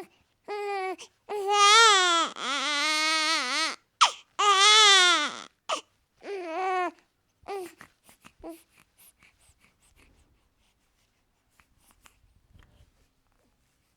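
Newborn baby crying: a run of wavering, high-pitched cries with short gasps between them over the first seven seconds or so. The crying then stops, leaving only faint small sounds.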